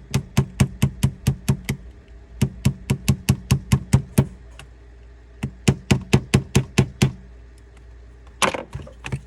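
Tapping a roll pin into the mag catch of an airsoft rifle's mechanism block: sharp, even taps at about four a second, in three runs of seven to nine strikes with short pauses between, then a couple of looser knocks near the end.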